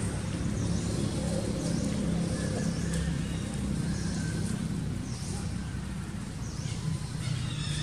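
A steady low hum of a distant engine, with faint high chirps recurring every second or two.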